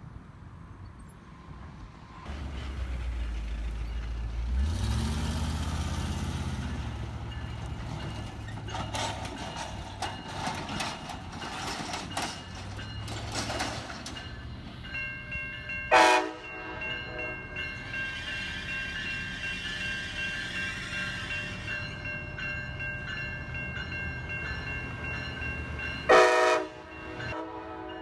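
A train passing close by: a deep locomotive engine rumble that builds and rises in pitch, a spell of clattering wheels on the rails, then the horn sounding, with loud blasts about halfway through and again near the end and a quieter steady chord between them.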